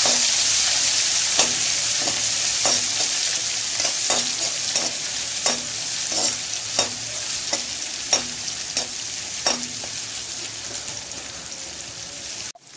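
Sliced onions sautéing in hot oil in a kadai: a steady sizzle that slowly fades, with a metal spoon knocking against the pan a little more often than once a second as they are stirred.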